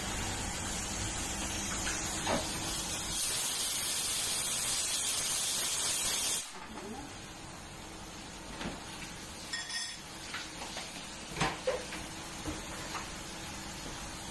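Pressure cooker with a weighted whistle valve hissing as steam escapes under pressure. The hiss swells about three seconds in and cuts off sharply a few seconds later, leaving a fainter steady hiss with a few light clicks.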